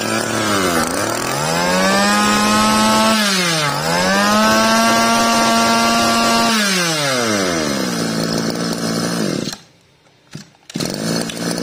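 Stihl FS 2100 brushcutter's small two-stroke engine (about 22–23 cc) revved high by hand at the carburettor, dipping briefly and revving up again, then dropping to idle. It cuts out about three quarters of the way through, and an engine is heard idling again just before the end.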